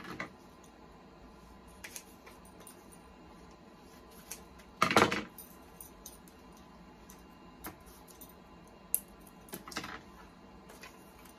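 Small tabletop handling sounds: scattered light clicks and taps as a sublimation coaster, its printed paper and heat-resistant tape are handled and taped together, with one louder, short rasping burst about five seconds in.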